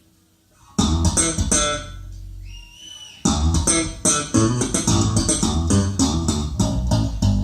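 Recorded music with bass and plucked guitar played back through Focal Chorus 726 S loudspeakers. It starts from near silence, comes in about a second in, thins to a gliding tone near the middle, then runs on with a steady beat from about three seconds in.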